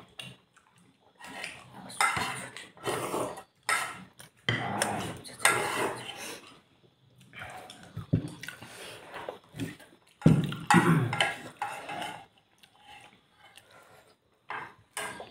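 Spoons clinking and scraping against bowls and plates during a meal, in irregular bursts with a few sharp knocks.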